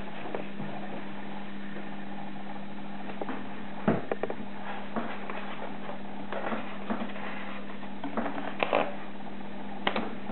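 Plastic wrapping and polystyrene packaging rustling and crackling as a soundbar is unpacked by hand, in scattered short bursts, the loudest about four seconds in and near the end. A steady low hum and hiss run underneath.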